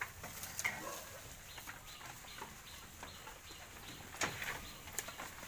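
Goats feeding at a trough of cassava leaves: rustling and tearing of leaves and stems, with scattered clicks and a few sharp knocks, the loudest a little after four seconds in. A few short high-pitched calls sound through it.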